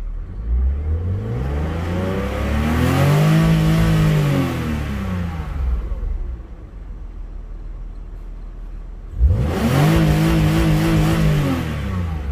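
BMW E36 engine revved twice with the car standing: first a slow climb and fall, then, about nine seconds in, a quick snap up that holds high for a couple of seconds before dropping back. It is a test of a freshly recoded ECU.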